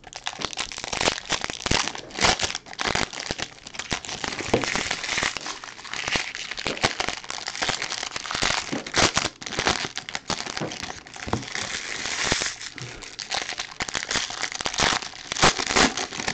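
Foil wrappers of 2019 Bowman Baseball Jumbo card packs being torn open and crinkled by hand: a continuous crackling rustle with many sharp crinkles.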